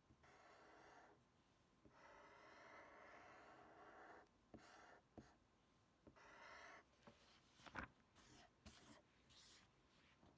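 Near silence, with a few faint soft swishes lasting a second or two each and some light taps.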